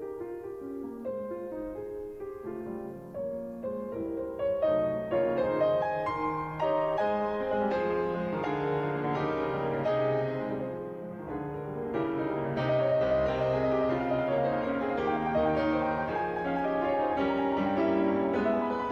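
Instrumental background music led by piano, fuller and louder from a few seconds in, with a brief thinning near the middle.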